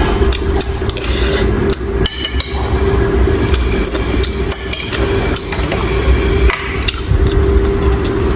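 Repeated irregular hard knocks over a steady low hum.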